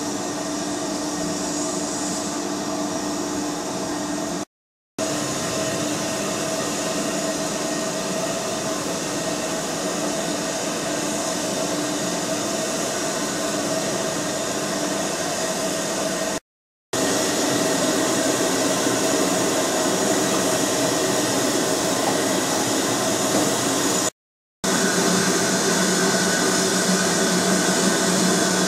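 Steam locomotives standing in steam, giving a steady hiss of escaping steam with a low hum under it. The sound cuts out briefly three times.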